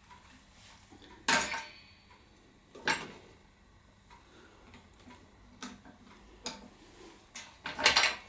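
Loose metal motorcycle parts and tools clinking and clanking as they are handled. There is a sharp clank about a second in, another near three seconds, a few light ticks, and a quick run of clanks near the end.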